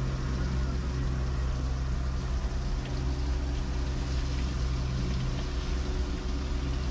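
Fishing boat's engine running steadily: a low, even hum that does not change.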